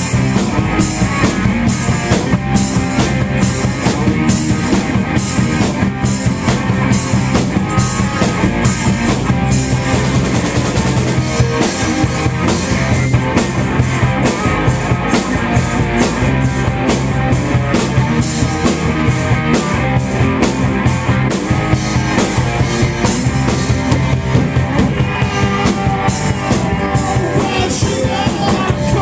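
Live rock band playing loud and steady, with electric guitars over a drum kit.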